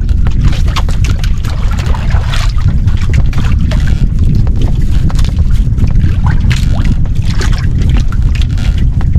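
Strong wind buffeting the microphone aboard a small fishing boat at sea, a loud steady rumble, with scattered knocks and brief splashy hisses on top.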